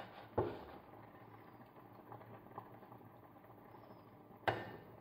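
Metal box grater knocking twice on a ceramic plate, about half a second in and near the end, each knock with a short ring. Between the knocks there is faint scraping and rustling from the dried chortan (pressed dried matsoni) being grated and its crumbs being worked by hand.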